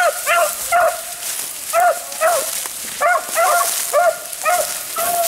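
Rabbit hounds barking in short, repeated barks, about two a second with uneven gaps, as they trail a rabbit's scent through the brush.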